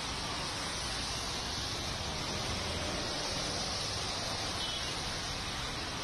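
Steady outdoor street ambience: an even hiss with a low rumble underneath and no distinct events, apart from a faint brief chirp about four and a half seconds in.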